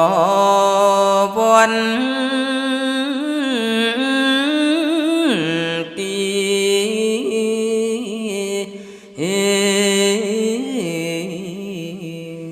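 Khmer smot, Buddhist verse chanted solo by a male monk's voice, with long held notes that waver and glide between pitches. It drops to a lower note about five seconds in and breaks for a breath about nine seconds in before a new phrase. The voice fades toward the end.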